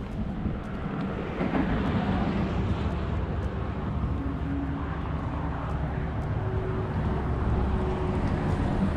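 Wind rumbling and buffeting on the microphone at the open seashore. A faint, steady engine drone is heard in the second half.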